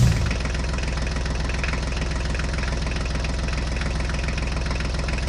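Tractor engine idling steadily with a fast, even knock.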